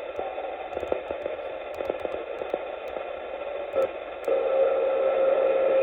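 Static and band hiss from a Xiegu G90 transceiver's speaker, tuned to the 11-meter CB band on sideband, with faint clicks. About four seconds in, a steady whistle-like tone comes in and the sound gets louder as a station keys up.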